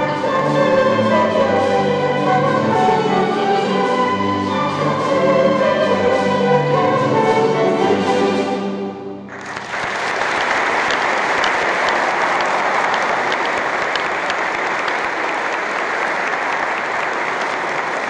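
A music ensemble singing and playing a song, which ends about halfway through, followed by audience applause.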